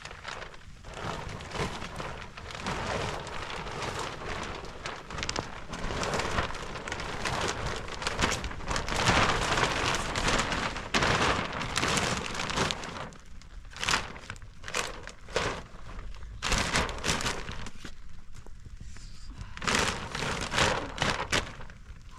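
Rain falling steadily, with irregular louder rustling and crackling bursts throughout.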